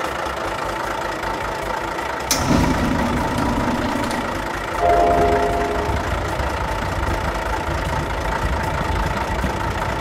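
Heavy machine's engine running steadily at idle, dubbed as the sound of a toy wheel loader. There is a sharp click a little over two seconds in, and a short pitched tone about five seconds in.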